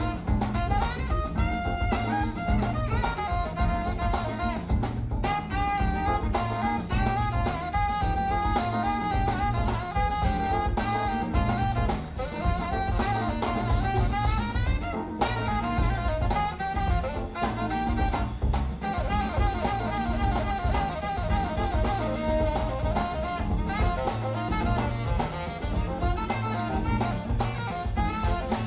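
Background jazz music: saxophone and brass melody over a steady drum-kit beat.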